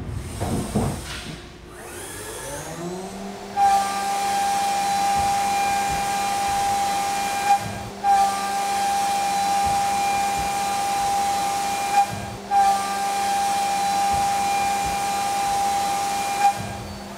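A CNC mill's spindle winds up in pitch, then a 3-inch Kennametal Stellram shell mill face-mills aluminum at 500 inches per minute and about 12,000 rpm. It makes a loud steady high whine over hiss, in three passes of about four seconds each, with a brief break and a click between passes. The spindle is working at about 169% load.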